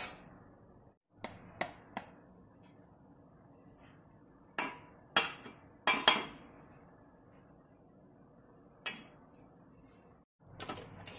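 Stainless steel bowls and a spoon clinking and knocking on a kitchen counter: scattered sharp clinks with short ringing tails, the loudest pair about six seconds in.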